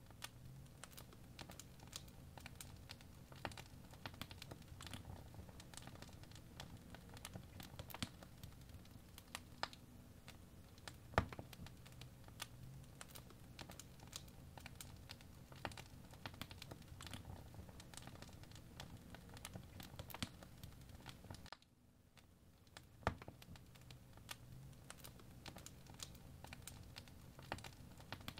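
Crackling fireplace ambience: faint, irregular crackles and pops of burning wood over a low steady rumble. The sound drops out briefly about three-quarters of the way through, then resumes.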